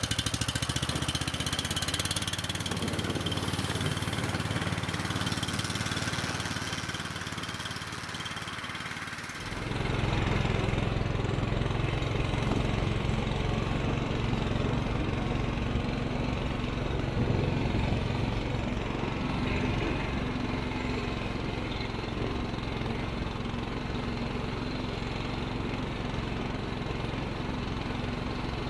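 Small engine of a motorized ski-tow (motodog) running steadily. About nine and a half seconds in the sound changes abruptly, its low rumble becoming much louder.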